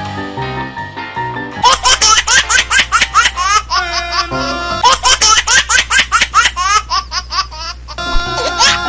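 Background music, joined about two seconds in by rapid high-pitched giggling laughter, several bursts a second, that breaks off shortly before the end; a comic laugh sound effect laid over the music.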